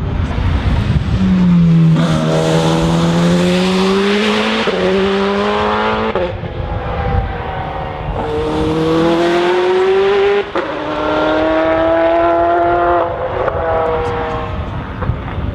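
Racing car engine accelerating hard up through the gears: the pitch climbs in each gear, then drops sharply at each quick upshift, several times over.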